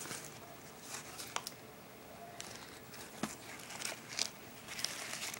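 Light handling noise: soft rustling with a few scattered clicks and taps as skateboard knee pads with hard plastic caps are moved and pressed by hand.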